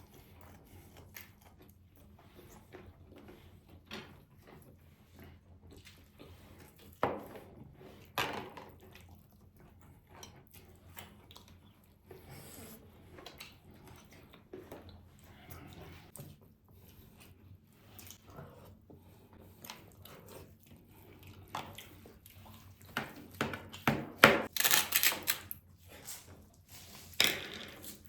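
Close-up eating sounds of meatballs and rice: soft chewing and wet mouth sounds with scattered small clicks, two sharper clicks about seven and eight seconds in, and a run of loud crisp clicks near the end.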